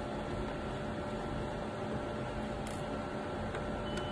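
Steady low hum and hiss with faint thin whining tones, broken by one light click about two and a half seconds in.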